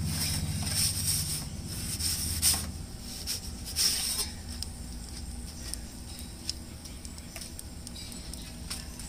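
Metal pizza peel scraping and clacking against the stone and the mouth of a Solo Stove Pi Prime pizza oven as a pizza is slid in and the peel is pulled back out, with the sharpest scrapes about 2.5 and 4 seconds in. Under it runs a low rumble that eases after about three seconds.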